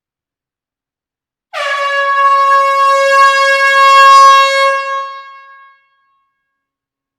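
One long blast of an air horn: a single steady note that dips briefly in pitch as it sounds, holds for about four seconds and then tails off.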